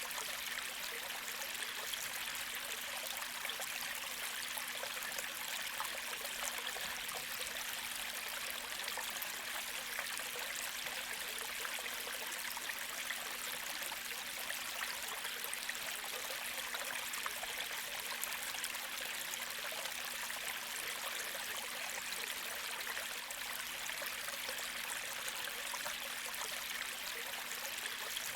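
Gentle creek flowing: a steady, even rush of water with no pauses or changes.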